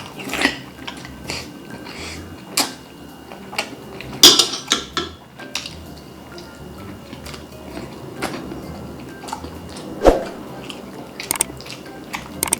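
Close-miked eating and food handling: a string of sharp crunches and clicks, the loudest about four seconds in and again about ten seconds in, over faint background music.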